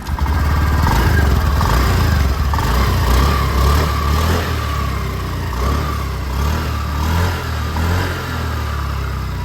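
Honda Activa 6G scooter's single-cylinder four-stroke engine running after the loose bush in its magneto rotor has been welded, the test of whether the engine noise is cured. It is louder for the first few seconds, then settles a little lower.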